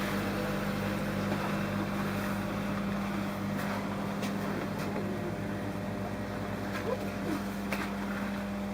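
Steady low hum with a wide hiss over it, with a few faint clicks and short wavering voice-like sounds in the second half.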